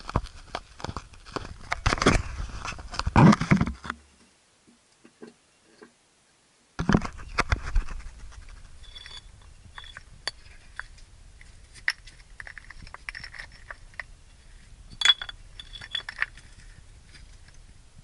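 Footsteps crunching and scraping on loose rock rubble, with stones clicking and clattering underfoot: heavy for the first four seconds, then a gap of near silence of about three seconds, then another burst of crunching and fainter scattered clicks.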